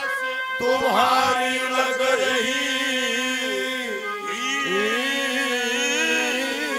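A male singer performing a Haryanvi ragni devotional invocation in a slow, chant-like line that bends up and down in pitch, over steady held harmonium notes.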